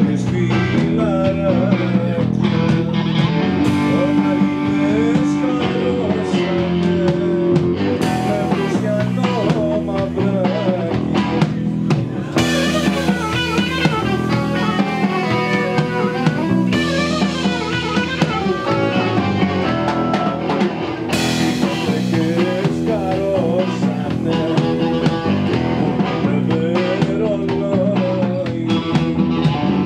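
Live blues-rock band playing: electric guitars over a Pearl drum kit, with a harmonica playing the lead line.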